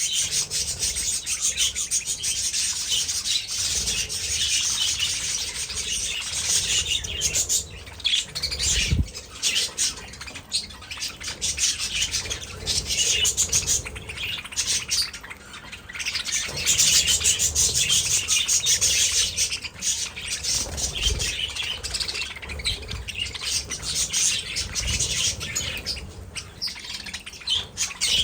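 A flock of budgerigars chattering continuously: many short chirps and squawks overlapping in a dense twitter, with a few brief lulls near the middle.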